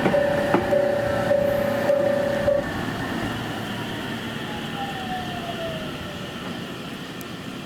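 A JR Central 313-series electric train rolling slowly along the station track, its motor whine falling in pitch as it slows to a stop. A repeated beeping warning tone sounds over it and stops about two and a half seconds in.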